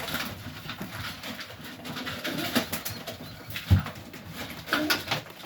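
Highflyer pigeons cooing and shuffling about, with scattered light clicks and one louder knock a little past the middle.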